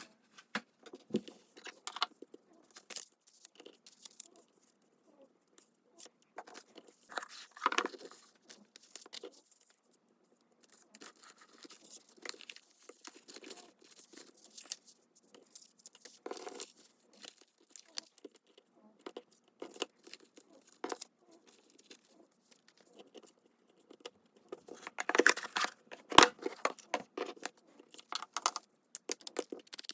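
Paper being handled and torn by hand: scattered crisp rustles and small taps, with louder bursts of rustling about 8 seconds in and again around 25 seconds.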